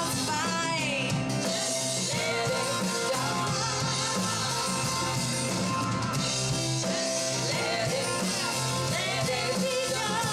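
Live band playing a song: women singing lead and harmony over a Yamaha keyboard, electric bass, acoustic guitar and drums.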